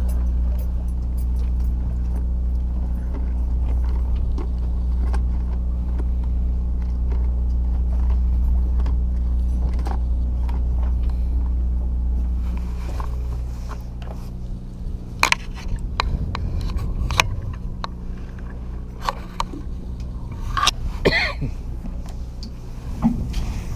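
Boat engine running with a steady low hum that drops in level about 13 seconds in, after which a series of sharp knocks and clicks rises above it.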